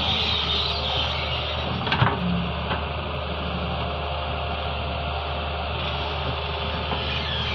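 Doosan DX140W wheeled excavator's diesel engine running steadily under hydraulic load as the boom swings and the bucket digs into sand. A single sharp clunk comes about two seconds in.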